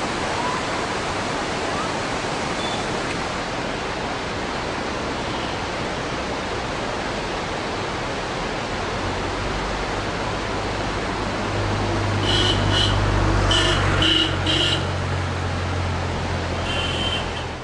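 Steady rush of a fast mountain river over boulders. From about halfway a low hum joins it, loudest a few seconds before the end, and a handful of short high chirps come near the end.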